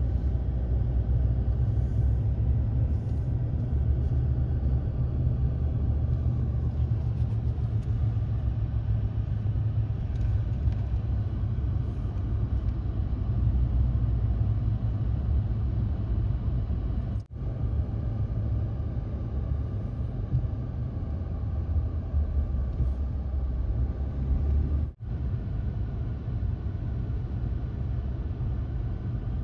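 Steady low rumble of road and engine noise inside a moving car's cabin. It drops out for an instant twice, once past the middle and again near the end.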